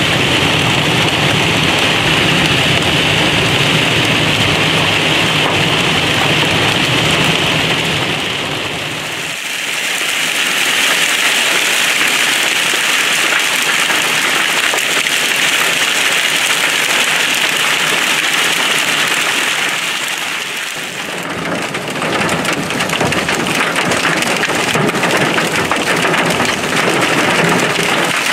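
Heavy thunderstorm rain pouring steadily, at first with a low rumble underneath that drops away about nine seconds in. The rain sound shifts again about twenty-one seconds in, becoming a denser patter.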